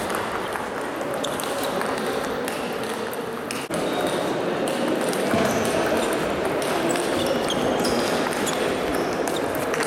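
Table tennis balls clicking off bats and tables, with hits from several tables at once in a large sports hall, over a steady background murmur of voices.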